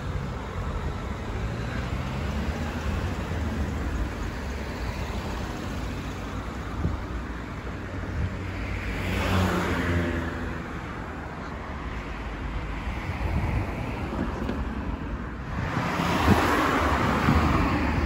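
Street traffic: cars driving along the road alongside, a steady engine and tyre rumble that grows louder as vehicles pass about nine seconds in and again near the end.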